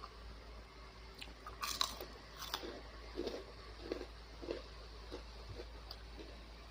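A person bites into something crisp twice, with loud, sharp crunches, then chews with a steady mouth-chewing rhythm of about two chews a second.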